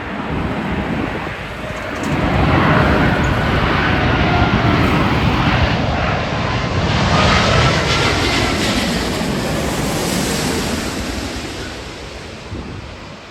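Jet airliner passing close. Its engine rush swells about two seconds in and fades away near the end, with a whining tone that slides in pitch as it goes by.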